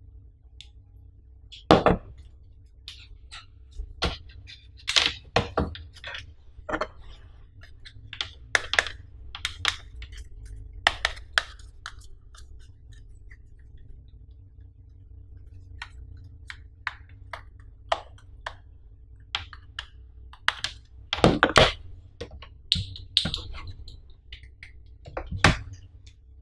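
Clicks, taps and knocks of a Sony BC-TRW battery charger's plastic casing and cord as it is handled, turned over and set down on a table, with the busiest run of knocks about three quarters of the way through. A steady low hum lies under it.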